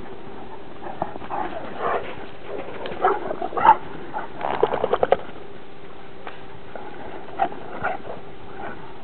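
A Transylvanian hound and a bloodhound play-fighting, giving short growls and vocal noises. The noises are busiest between about three and five seconds in, ending in a quick run of rapid sounds, and there are only a few scattered ones after that.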